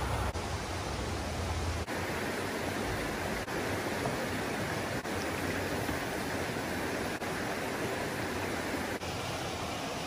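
Creek water rushing steadily over rocks and small cascades. A low rumble sits under it for about the first two seconds, then cuts off suddenly.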